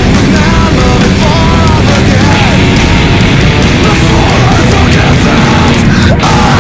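Loud, aggressive heavy-metal-style rock music playing without a break.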